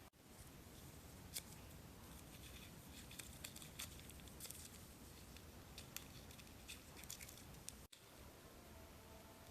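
Faint scattered clicks and light scraping, like small parts being handled, over quiet room tone.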